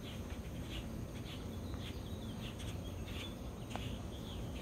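Faint outdoor morning ambience: scattered short high chirps over a low steady rumble of wind and handling noise.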